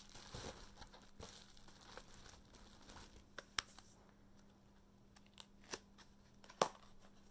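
Faint handling of a cardboard eyeshadow palette box: soft crinkling with a few sharp light clicks and taps, the strongest near the end, over a steady low hum.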